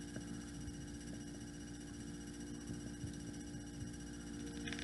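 Quiet room tone with a steady electrical hum.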